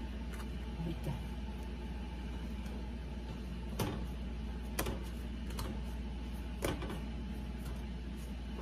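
A steady kitchen hum runs underneath, and about three sharp clicks and light knocks come near the middle: dough sopes being set down and handled on a metal stovetop griddle.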